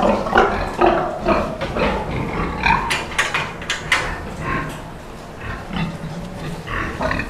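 Several young gilts grunting in a pen, in short, irregular grunts.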